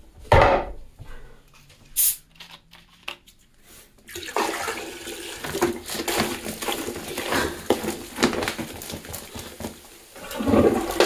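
Lemon-lime soda poured from a 2-litre plastic bottle into a toilet bowl, splashing into the water for several seconds from about four seconds in. A single thump near the start.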